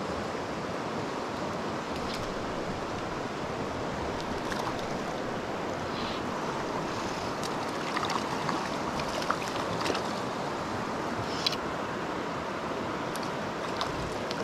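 Steady rush of river current, with short light splashes in the second half as a hooked trout thrashes at the surface on the line.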